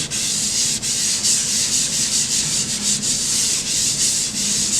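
Tissue paper rubbed back and forth over a graphite pencil drawing on paper, blending the shading into an even tone. A continuous papery hiss with small dips between strokes.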